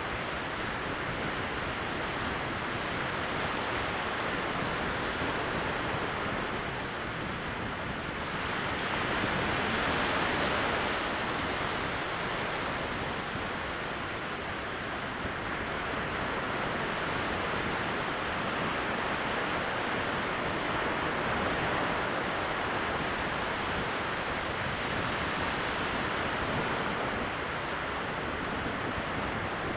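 Calm sea at very low tide: small waves breaking gently well out beyond wide wet sand flats, a steady soft wash of surf that swells a little louder about nine seconds in.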